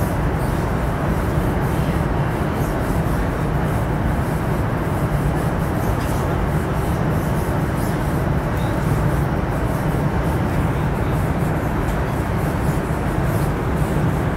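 Steady running noise of a CRH high-speed train cruising at about 295 km/h, heard inside the passenger car.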